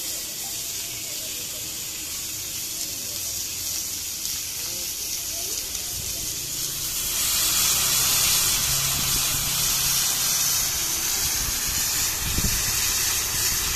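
Meat searing in hot cast-iron skillets, a steady sizzle that swells louder about seven seconds in as sauce goes into one of the hot pans.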